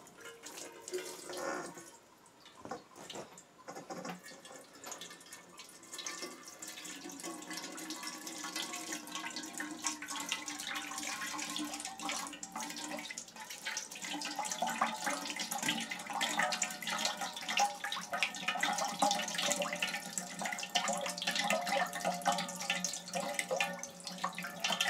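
Water from a toilet's supply line running and hissing under pressure, with a faint steady whine; it starts softly about six seconds in and grows louder. A few clicks and knocks of fittings being handled come before it.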